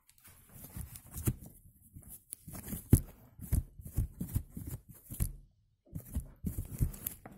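Close handling noise of soft foam pieces being rubbed and pressed, with irregular scuffs and knocks and a brief dropout a little before the end.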